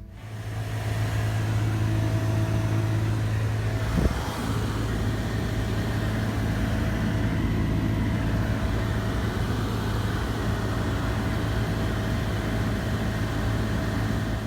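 Car air-conditioning blower fan running inside the cabin: a steady rush of air from the vents over a low hum, swelling in over the first second or so, with a single click about four seconds in.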